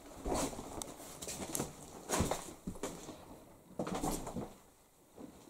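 Footsteps and small knocks of a person walking through the rooms of a house, a handful of irregular footfalls with a quiet stretch near the end.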